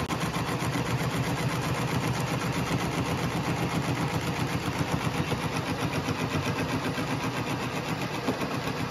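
Metal lathe running steadily, turning an excavator starter armature while its commutator is cleaned up. The hum pulses fast and evenly.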